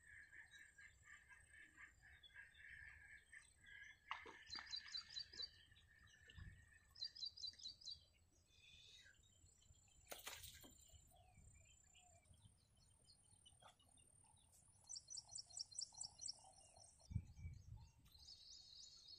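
Faint bird calls: several short runs of quick, evenly repeated high chirps, over a steady high buzz that fades out about five seconds in. A single click sounds about ten seconds in, and a brief low rumble comes near the end.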